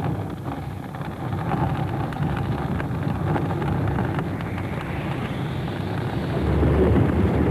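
A wooden building burning, set alight by an advancing lava flow: a steady low roar of flames with scattered crackles, swelling louder near the end.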